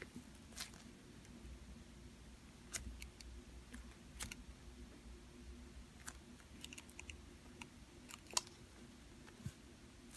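Faint, scattered clicks and crackles of a slow-rising polyurethane foam squishy toy being squeezed and flattened in the hands, over a low room hum.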